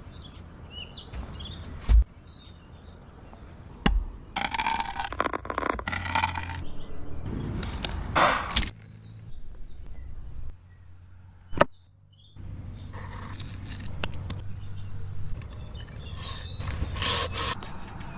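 A mix of outdoor work sounds with birds chirping: two heavy thuds in the first few seconds, stretches of scraping and rustling, and a single sharp knock about two-thirds of the way through.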